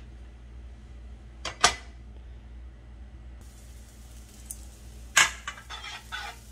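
Minced garlic starting to sizzle faintly in olive oil in a nonstick frying pan, from about halfway through. A sharp tap comes about a second and a half in. Near the end a utensil knocks on the pan and then clacks and scrapes quickly as the garlic is stirred.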